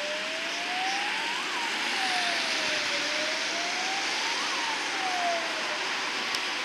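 Police van's siren sounding a slow wail, its pitch rising and falling twice, about three seconds per cycle, over steady traffic hiss.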